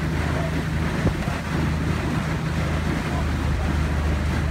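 Outboard motor of a coaching launch running at a steady pace with a low, unchanging hum, while wind buffets the microphone.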